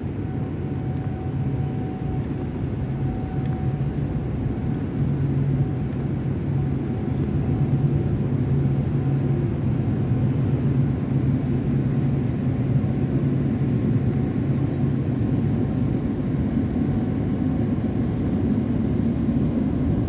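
A machine running with a steady low drone and a constant hum.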